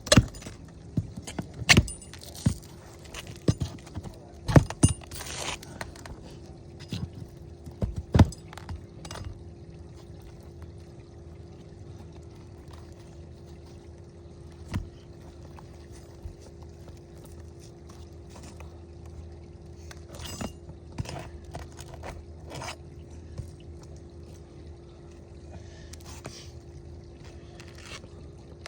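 Sharp metallic clinks and scrapes of a roofer's pry tool working on asphalt shingles, pulling out leftover nails. The clinks come thick in the first several seconds, then only now and then, over a steady low hum.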